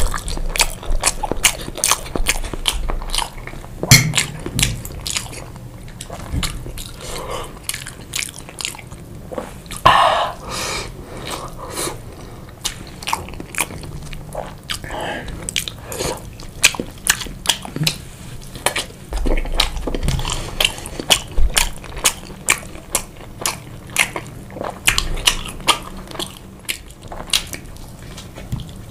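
A person chewing and biting chicken and pasta in sauce close to the microphone: a fast, irregular run of sharp mouth clicks and smacks.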